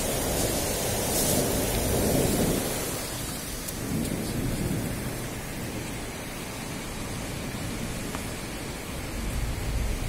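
Thunder rolling over steady rain: a long rumble that swells to its loudest about two seconds in and dies away, a weaker rumble around four seconds, and a deep rumble near the end.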